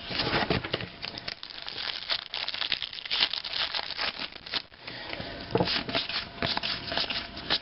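A football trading-card pack's wrapper being torn open and crinkled, with the cards rustling as they are handled; a busy run of crackling and crinkling that eases off for a moment now and then.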